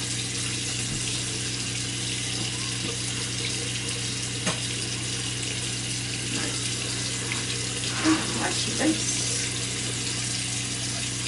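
Bathroom tap running steadily into a sink, with warm water being run for face washing. A single click comes about halfway through, and a faint voice is heard briefly near the end.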